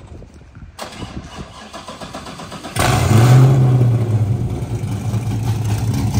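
V8 engine in a Honda S2000 being started: the starter cranks for about two seconds, then the engine catches with a sudden loud flare of revs and settles into a steady idle.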